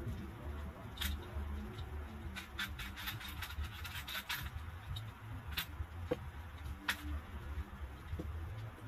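Light clicks and taps of a swing-top glass jar being handled while used cooking oil is poured from it into a tissue-and-face-mask filter and the jar is set back down: one click about a second in, a quick run of ticks in the middle, and a few more near the end, over a low steady rumble.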